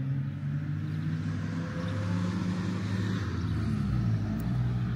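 Car engine running, a steady low drone with a haze of road or air noise over it.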